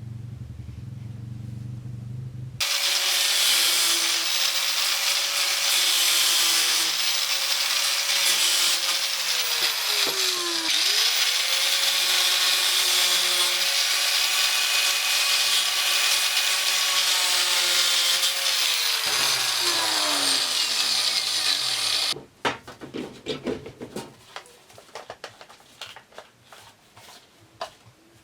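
A small electric motor runs loud with a strong rushing noise. Its pitch sags under load about 10 seconds in and recovers, sags again later, then the motor cuts off. Scattered clicks and rattles of handling follow.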